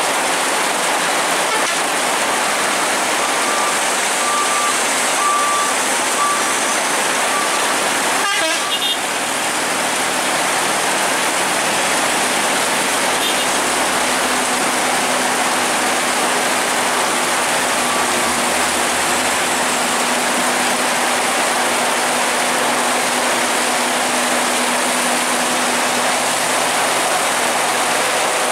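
Heavy rain pouring down on a mountain road, a steady hiss, with the low drone of trucks and motorcycles crawling past. A row of short, evenly spaced beeps sounds a few seconds in.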